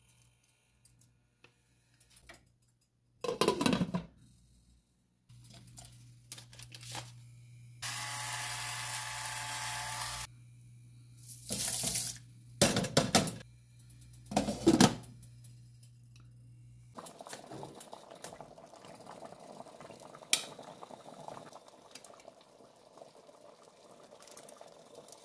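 Kitchen tap running for about two seconds, then water sloshing and pouring in three short bursts as rice is rinsed in a mesh strainer over a saucepan. A pot clatters a few seconds before, a low hum runs underneath the rinsing, and a soft steady hiss of a simmering pot follows.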